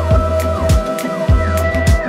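Electronic background music with a steady kick-drum beat, a little under two beats a second, over a held bass and sustained synth notes.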